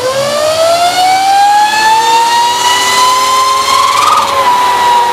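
Electric GSX-E motorcycle's motor and drivetrain whining loudly on a chassis dyno during a full-power pull in its highest-power mode 4. The pitch climbs quickly, then more slowly as the bike gathers speed, levels off, and dips slightly about four seconds in.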